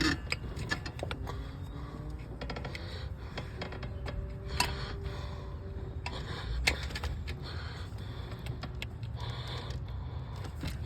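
Scattered light clicks and knocks of a new fuel injector being worked up into its fuel rail by hand, with two sharper clicks, about four and a half and about seven seconds in.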